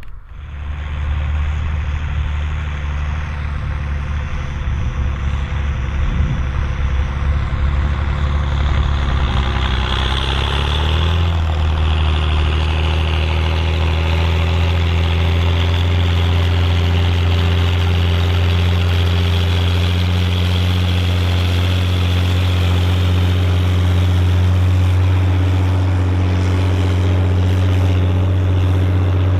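Volvo BM 810 Turbo tractor's turbo diesel engine running steadily under load. About a third of the way in the engine speed rises, then holds at the higher pitch.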